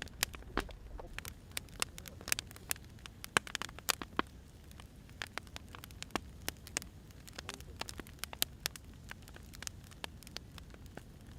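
Burning firewood crackling: irregular sharp pops and snaps, several a second, over a low steady rumble of the flames.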